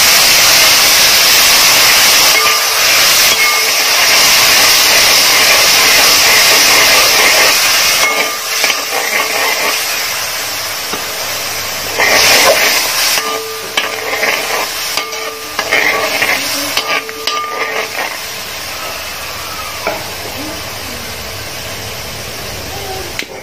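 Water poured into hot oil and spiced chilli-garlic masala in a pan, setting off a loud sizzling hiss that eases off after about eight seconds. After that, a spatula stirs and scrapes the pan now and then while the masala cooks down.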